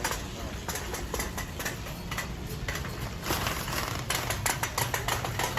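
Shopping cart rattling as it is pushed along: quick irregular clicks and clatter over a low rumble, getting denser a little past halfway.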